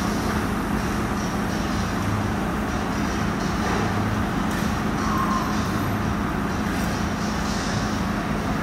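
Steady mechanical hum over an even rushing noise, unchanged throughout.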